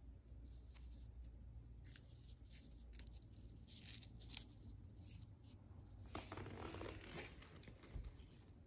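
Faint rustling and crinkling of a plant leaf handled between fingers, with a few light clicks. The crinkling is densest about six to seven seconds in.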